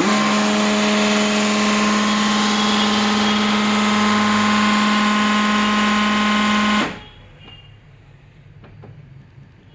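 HP LaserJet M1005 laser printer's drive mechanism running at power-on with a loud, steady mechanical grinding drone with a strong low hum. It cuts off abruptly about seven seconds in. This is the abnormal noise fault, which the repairer traces to a pulley inside the printer.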